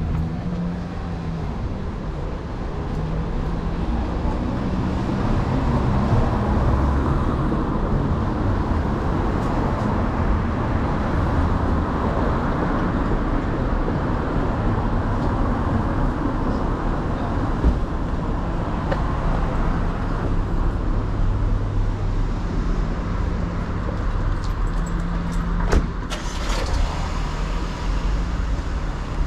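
Road traffic on a city street: vehicle engines running close by, swelling over the first few seconds, with two sharp knocks, one midway and one near the end.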